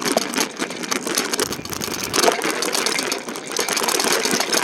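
A car engine running close by as the car pulls out, over a fast steady rattle from the e-bike.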